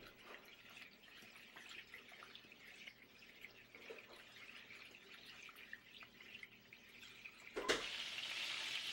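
Chicken thighs frying in olive oil in a pan, the fat crackling and popping faintly. About three-quarters of the way through there is a short knock, and after it the sizzle is much louder.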